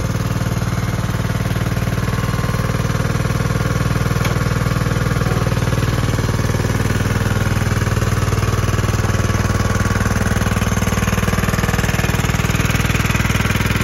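Kubota T1670 riding lawn tractor's engine running steadily at a constant pitch.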